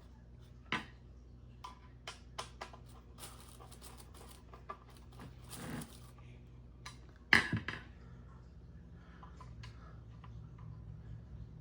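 Ceiling fan blade parts and screws being handled during assembly: scattered light clicks and ticks, a brief rustle, and a sharp knock about seven seconds in that is the loudest sound.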